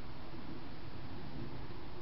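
Steady, even hiss from the microphone of a night-vision garden camera, with no distinct sound from the animal.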